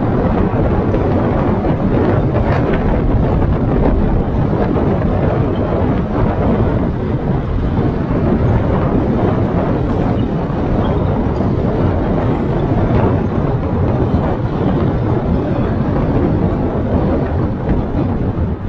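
Kia K3 driving at road speed: steady, loud tyre and road noise with wind rushing over the microphone, no engine note standing out.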